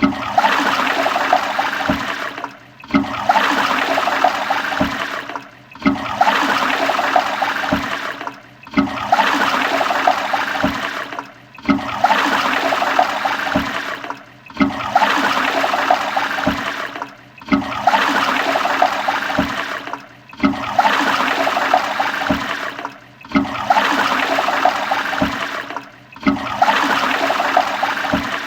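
Toilet flushing: a rush of water that starts suddenly, fades and breaks off, then starts again about every three seconds, some ten times over.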